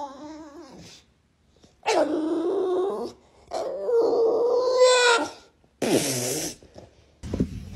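A bulldog grumbling and whining in three drawn-out, wavering moans, then a short rough burst.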